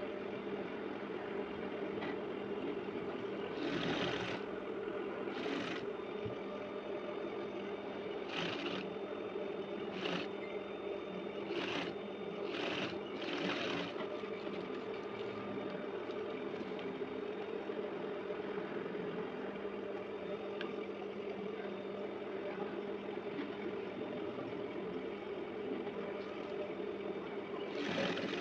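A steady low mechanical hum, with several short rustles of fabric being handled.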